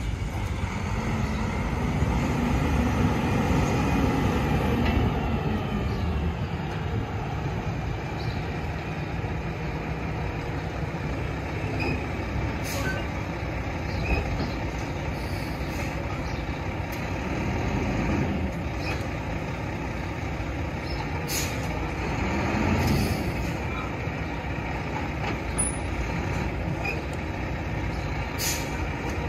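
Diesel engine of a roll-off garbage truck running steadily, revving up and back down early on, with a few short air hisses.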